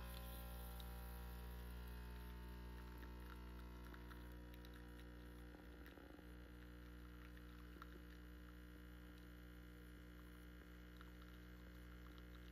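Faint, steady electrical hum with a low buzz and a few faint ticks.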